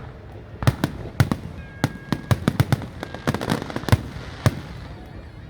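Fireworks going off in a rapid, irregular string of sharp bangs and cracks, more than a dozen in a few seconds.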